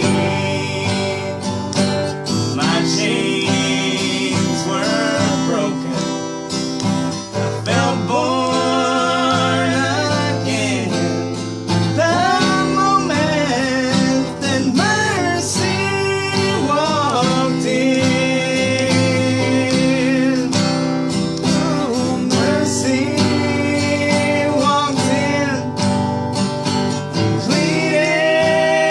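Acoustic guitar strumming with sung melody: a country gospel song.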